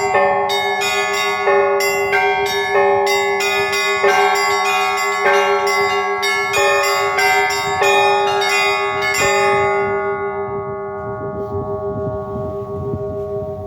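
Church bells ringing: several bells of different pitches struck in a quick pattern, with a deeper stroke about every second and a half. The strikes stop about nine seconds in and the bells ring on, fading, while a low rumble remains.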